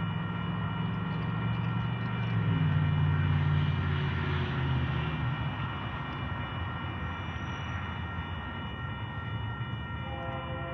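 A heavy engine rumbles, growing louder about two to three seconds in and fading out by about halfway, over a faint steady high-pitched whine.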